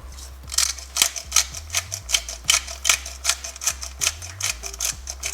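Black pepper being dispensed into the gravy: a quick, irregular run of sharp clicks, about three a second.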